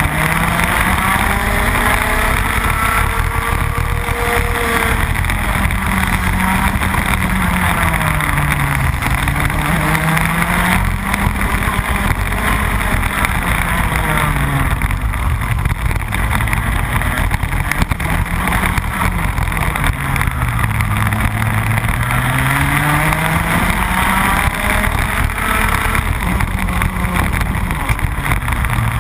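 Rotax Max 125cc two-stroke kart engine at race pace, heard from on board. Its pitch falls as it slows into corners and rises again under acceleration, several times over.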